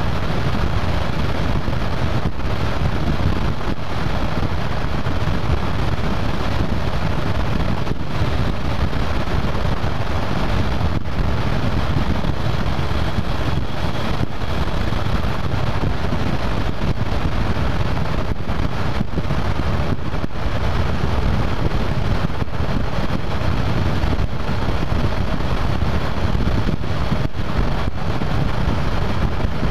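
Steady wind rush and buffeting on a hood-mounted camera's microphone while the car cruises at a constant speed, with engine and road noise underneath. The level stays even, with no revving.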